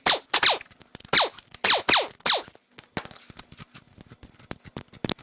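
Power wrench spinning the loosened head bolts out of a Jeep 4.0L inline-six's cylinder head in six short bursts, each a quick whir falling in pitch. In the second half come small metallic clicks and clinks as the bolts are handled and lifted out.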